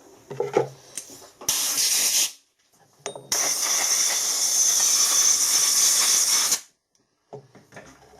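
Two bursts of hissing spray or escaping gas: a short one about a second and a half in, then a longer one of about three seconds, each stopping abruptly.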